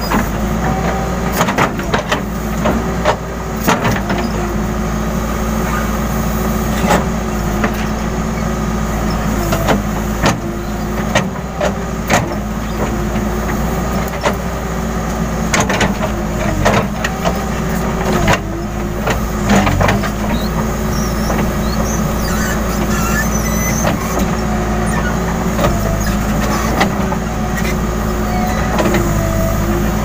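Case N Series backhoe loader's diesel engine running steadily under hydraulic load, its pitch dipping and recovering now and then as the backhoe arm works. Sharp clanks and knocks come through repeatedly, most often in the first two-thirds, as the bucket digs into the earth bank.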